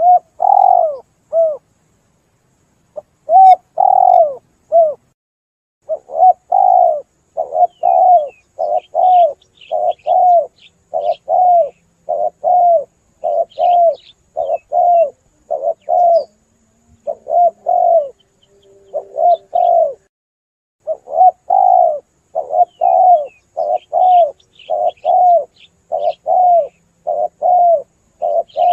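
Spotted dove (tekukur) cooing over and over: a long run of short, rounded coos in quick groups, with brief pauses in the first few seconds. Faint higher chirps of a smaller bird sit behind it.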